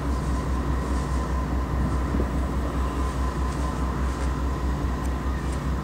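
GE AC4400CW (CW44AC) diesel-electric locomotive pulling away from a standing start, its 16-cylinder diesel engine working under load with a deep, evenly pulsing beat and a steady whine above it.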